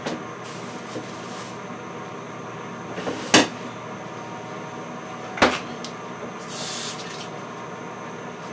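Two sharp knocks about two seconds apart, as of kitchen cupboard doors being opened and shut, with a short rustle after them. Under them runs the steady hum of an air fryer's fan.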